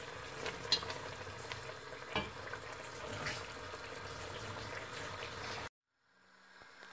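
Chicken pieces sizzling steadily in yogurt sauce in a stainless steel pot, with a few light knocks and scrapes of a slotted spoon stirring them. The sound cuts off suddenly near the end.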